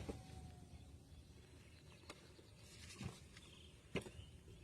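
Near silence, with a few faint, short clicks about two, three and four seconds in.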